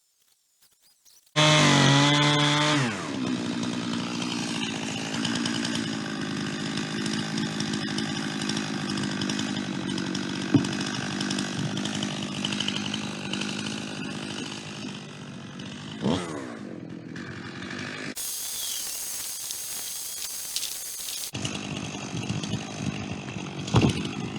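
Chainsaw in a chainsaw-mill attachment ripping lengthwise through a white pine log. It comes in suddenly about a second in, its engine note drops as the chain bites into the wood, and it then runs steadily under load.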